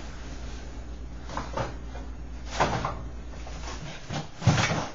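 Rummaging through a refrigerator: items being shifted and knocked on the shelves in a few separate bursts, the loudest knock near the end.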